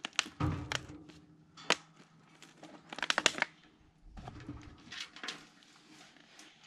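Irregular clicks, clatter and a few dull thuds from gear and the cable car's metal fittings being handled.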